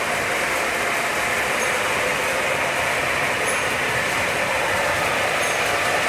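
O scale model trains running on a layout: a steady rolling rumble of metal wheels on the track and the hum of the locomotives' motors.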